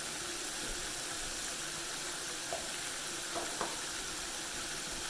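Breaded chicken thighs frying in hot canola oil, a steady sizzle, with a couple of faint small clicks in the middle.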